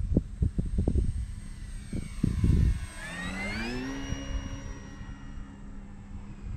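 An FMS Ranger 1.8m RC plane's brushless electric motor and 12x7.5 propeller whining. About three seconds in, the whine rises in pitch for about a second, then holds steady. Before it, wind buffets the microphone in gusts.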